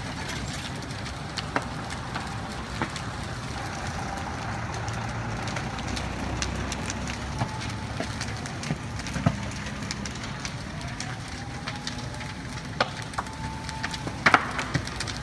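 A building fire burning: a steady rushing noise with irregular sharp crackles and pops, and a cluster of louder pops near the end.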